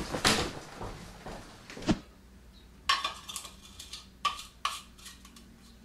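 A few knocks, then several short clinks of a large glass bottle being handled and set about while things are packed.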